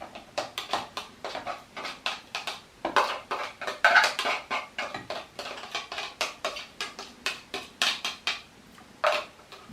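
A kitchen utensil scraping and tapping against dishes while minced onion is spooned into a glass: many quick, irregular clicks and scrapes.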